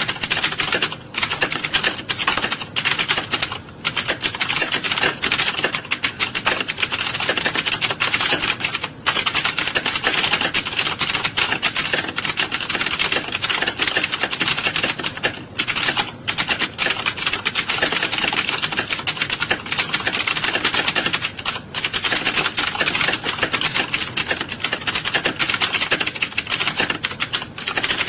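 Many computer keyboards being typed on at once by a roomful of typists, a dense, continuous clatter of keystrokes with a few brief lulls.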